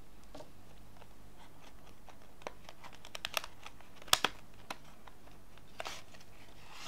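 Packaging being cut and pried open with a knife: scattered small clicks and crinkles, with a cluster about three seconds in, the sharpest snap just after four seconds, and a short scrape near the end.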